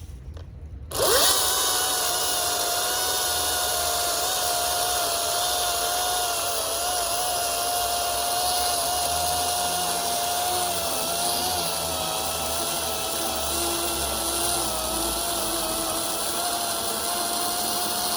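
DeWalt 20 V battery chainsaw's electric motor spinning up with a quick rising whine about a second in, then running at a steady high whine while it cuts through the thick part of a log.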